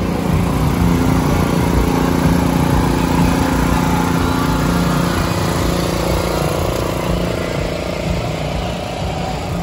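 An engine running steadily, its hum easing off slightly near the end.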